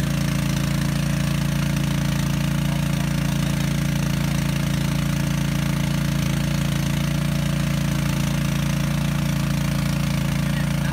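A small engine running steadily, giving a constant, even low hum.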